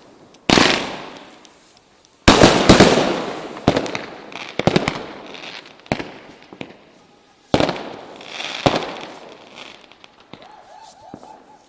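New Year's Eve fireworks going off: a series of loud, sharp bangs at uneven intervals, each trailing off over a second or two.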